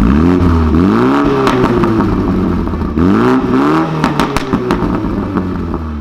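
BMW M135i (F40) 2.0-litre turbocharged four-cylinder through a Remus aftermarket exhaust, revved with two throttle blips that each rise and fall, the first just after the start and the second about three seconds in. A burst of crackles and pops follows the second blip, then the engine settles back to idle.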